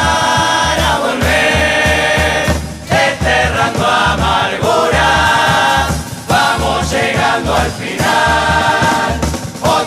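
Murga choir singing a song in several voices over a steady low drum beat.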